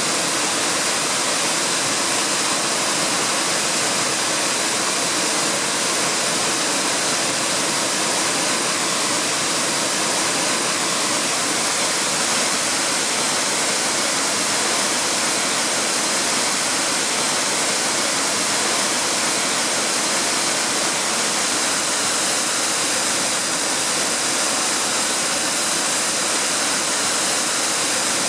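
Waterfall pouring: a steady, loud rush of falling water with a hissing edge, unchanging throughout.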